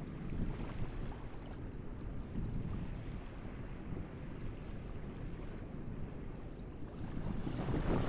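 Small ocean waves breaking and running up the sand in a steady wash of surf, swelling louder near the end as another wave comes in. Wind rumbles on the microphone underneath.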